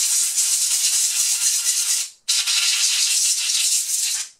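Compressed air from a compressor blow gun blasting into a laptop cooling fan to clean it out: a loud hiss in two long blasts with a short break about two seconds in.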